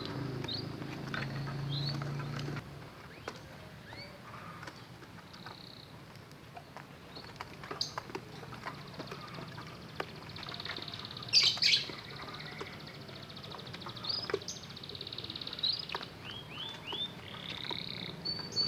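Several caged pet birds chirping and calling: many short rising chirps and quick trills, with a louder squawking burst about eleven seconds in. A low steady hum under the first couple of seconds stops abruptly.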